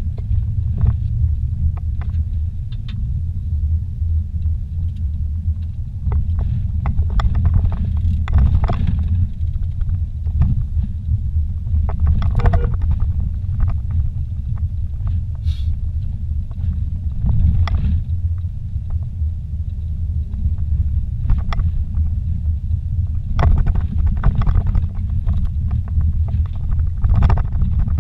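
Vehicle heard from inside the cabin while driving on a rough dirt road: a steady low rumble of engine and tyres, with scattered knocks and rattles as it goes over bumps and stones.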